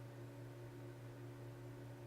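A steady, faint low electrical hum with a light hiss underneath, unchanging throughout.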